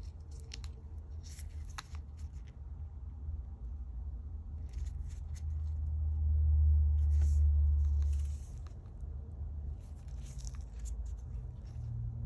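Light clicks and scrapes from handling the small parts of an iPod Classic being taken apart, coming in several short clusters. Underneath is a low rumble that grows louder for a few seconds in the middle.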